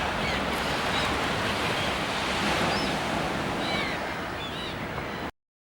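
Steady rushing noise with a few short, high bird chirps over it, a pair of them about two-thirds of the way in. The sound cuts off suddenly near the end.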